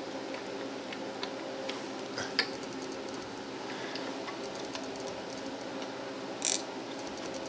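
Small scattered clicks and ticks of fingers handling a brass lamp socket while loosening the wire from its terminal screw. There is a sharper click a little over two seconds in and a short scraping rustle near the end, over a steady low hum.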